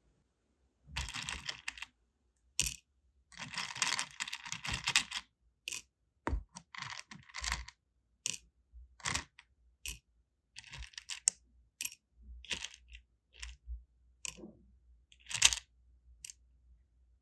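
Small sealing wax beads clicking and rattling as they are picked out of a plastic compartment box and dropped into a metal wax melting spoon. The sound comes in a few short clattering bursts followed by a string of single sharp clicks.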